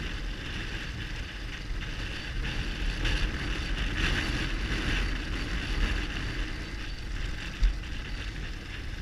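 Motorcycle riding along a gravel track, heard as wind rushing over the camera microphone with the low rumble of the BMW R1200GS Adventure's flat-twin engine underneath.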